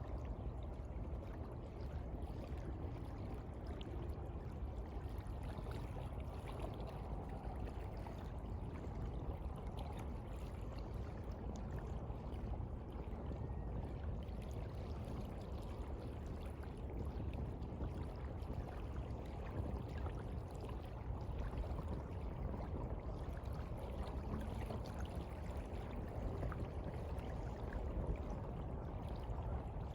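Sea water washing and lapping in a steady, even low rush, with faint small splashes throughout.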